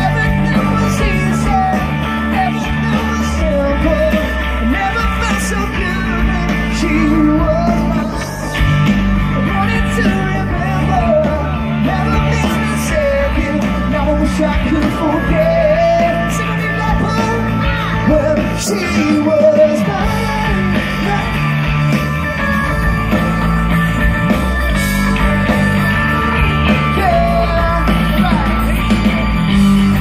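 Live pop-rock band playing through a stage PA: a man singing lead over electric guitars, bass and drums.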